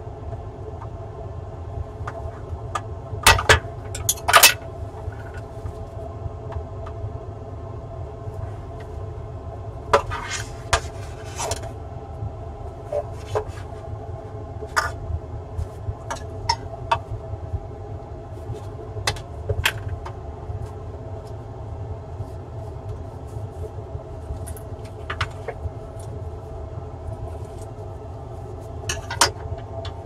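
Scattered clicks, knocks and light clatter of hand tools and a laptop's bottom cover being handled and set down on a rubber work mat, over a steady low hum.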